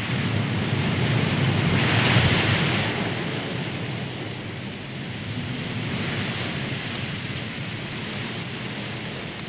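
Steady heavy rain, swelling louder for a second or two about two seconds in, then settling.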